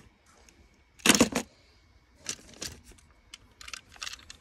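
Hard plastic clicks and rattles of small toys being handled. A loud cluster comes about a second in, then scattered lighter clicks.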